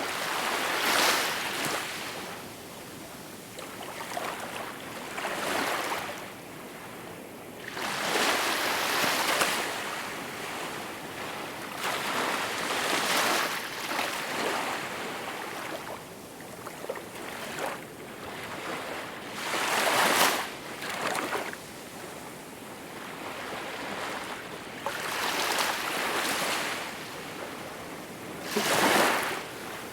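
Small waves washing in, each one a rushing hiss that swells and falls away, about every four seconds.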